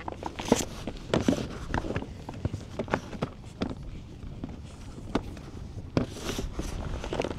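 Anchor rope being paid out over the side of an inflatable PVC boat: irregular knocks and clicks from the rope and hardware on the hull, with two longer rasps of rope running over the tube, one about a second in and one near the end.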